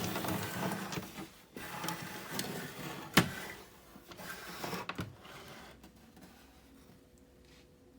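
Plastic toy cash register being handled and turned around on a surface: scraping and rubbing, with one sharp knock about three seconds in, dying away after about five seconds.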